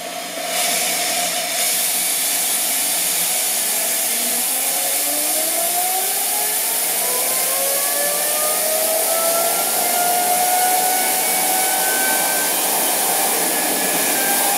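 Homemade jet engine being spun by compressed air: a loud steady rush of air, with a turbine whine that rises steadily in pitch from about four seconds in and levels off near the end. The engine is not running on its own; the air spins it up.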